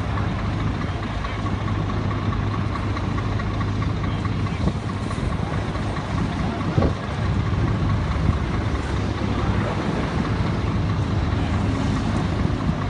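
Heavy diesel engines of a lorry and excavators running steadily, with a low, even hum. A brief knock about seven seconds in.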